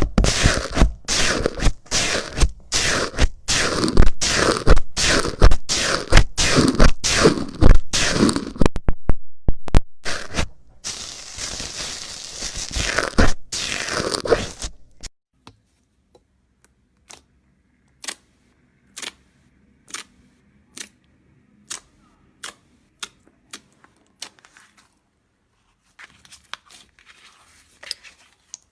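Crunchy slime being pressed and squeezed by hand, giving loud crackling crunches about twice a second, then one longer drawn-out crackle. After about halfway it goes much quieter, with only faint light clicks about once a second.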